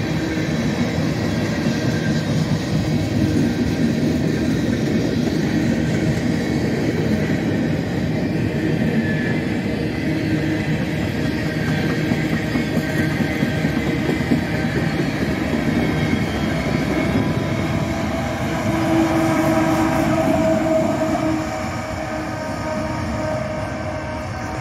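Freight train of tank cars, boxcars and hoppers rolling past, a steady rumble of wheels on rail. A locomotive at the rear of the train goes by near the end, and the sound then drops off.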